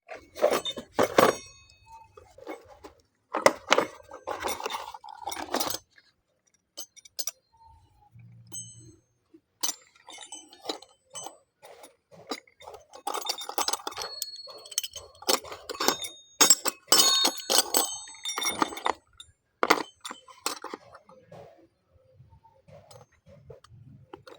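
Steel hole saw cups and fittings clinking and rattling against each other as the set is handled, in irregular clusters of sharp knocks, some leaving a brief metallic ring.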